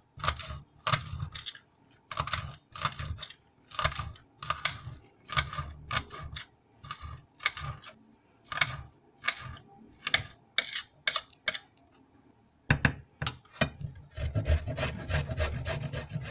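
Small knife cutting through spring onions onto a ceramic plate: a steady series of sharp cuts, about one or two a second. After a short pause near the end, a carrot is rubbed back and forth on a flat metal rasp grater, a continuous scraping.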